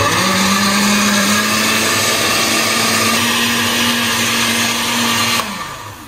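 Oster BLSTKAG-BPB 800-watt blender blending milk, bananas and sugar in its glass jar on speed 2. The motor runs steadily, its pitch stepping up slightly about a second and a half in, then is switched off near the end and winds down.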